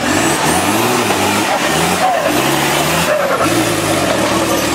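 Nissan Patrol 4x4's engine revving hard in repeated surges as it crawls over rough off-road ground, the pitch rising and falling about four times.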